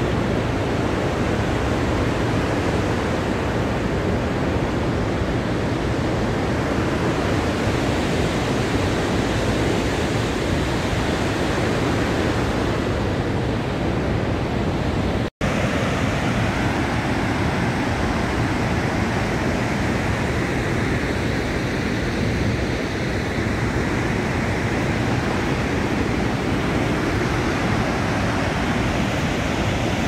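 Dettifoss waterfall pouring into its canyon, heard close up: a steady, loud rush of water, with a momentary break about halfway through.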